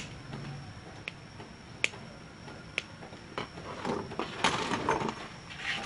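Excess lead wires on an electric fan motor being snipped: a few sharp clicks about a second apart, then a busier run of clicks and handling rustle near the end.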